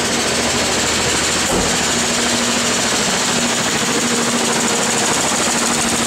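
1988 Ford Bronco II's 2.9-litre V6 running rough and misfiring, with a steady, fast knocking, huffing and slapping. The cause is a ruptured fuel pressure regulator diaphragm that lets fuel be sucked into the intake through the vacuum hose, flooding one bank; the owner thinks it is probably pre-detonating.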